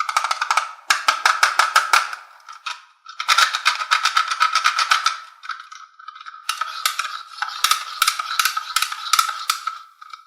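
Rapid rattling clicks in three bursts, each a couple of seconds long, with a steady thin tone running under them.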